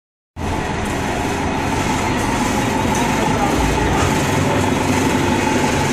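Gillig Phantom transit bus under way, heard from inside the cabin: a steady drone of engine and road rumble, starting abruptly a moment in.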